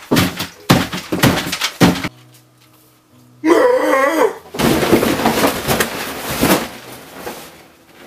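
Clattering knocks of a plate and greens being thrashed about on a table, then, after a brief wavering tone, about two seconds of loud crashing as the table and camera are knocked over, with faint background music.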